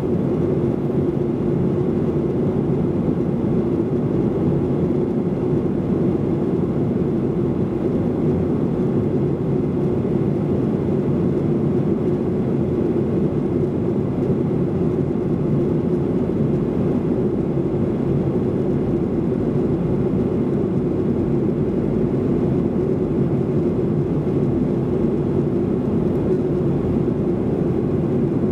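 Steady cabin drone of a Boeing 737-800 in flight, heard from a rear seat behind the wing: the CFM56-7B turbofan engines and rushing airflow making an even, unbroken noise with a constant low hum.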